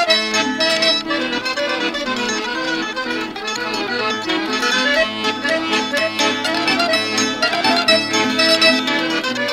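Background music playing steadily throughout.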